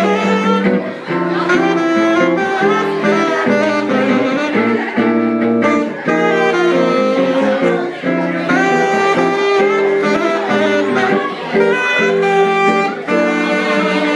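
Live jazz: a saxophone plays a melody line with quickly changing notes over guitar accompaniment.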